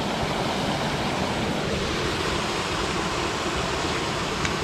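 Waterfall splashing: a steady, even rush of falling water.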